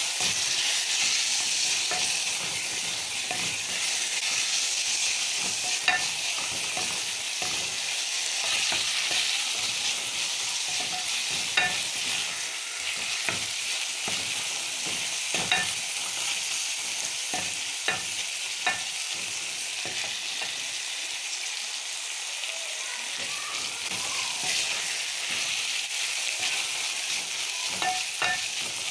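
Beef pieces and sliced onions sizzling in hot oil in an aluminium pot while a spatula stirs them, a steady hiss with a few sharp clicks now and then.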